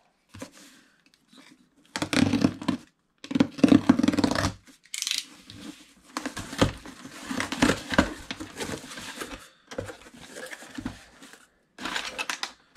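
A parcel being torn open by hand: packaging ripping in a few loud bursts, then a longer stretch of rustling and crinkling of the wrapping.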